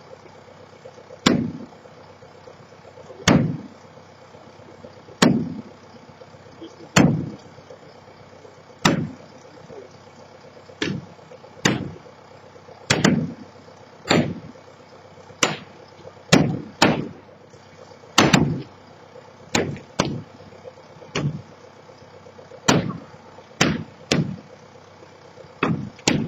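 About twenty heavy blows from the silo demolition, one every second or two and coming faster after the middle, each a sharp bang with a short low decay, over a steady engine hum.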